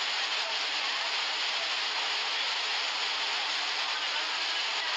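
Heavy rainstorm with wind: a steady, loud rushing hiss of torrential rain.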